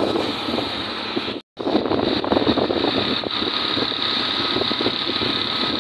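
Motorcycle engine running steadily while riding, mixed with wind rush on the microphone. The sound cuts out for an instant about a second and a half in, then carries on unchanged.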